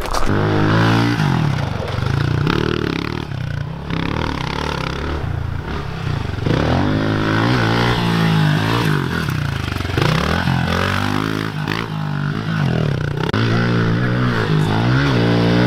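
Small pit bike's engine revving up and dropping back again and again as the rider opens and closes the throttle through the turns and jumps of a dirt track.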